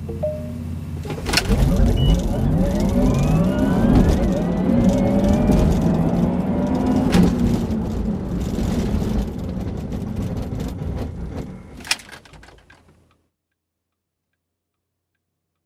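Porsche Taycan prototype's electric drive whining inside the cabin as it launches hard from a standstill, the whine rising in pitch with speed, then falling as the car brakes hard, with tyre and road noise underneath. A few sharp knocks come through along the way, and the sound cuts off abruptly about thirteen seconds in.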